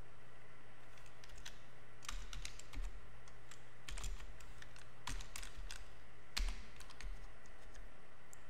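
Typing on a computer keyboard: scattered key clicks in short irregular runs with pauses between them.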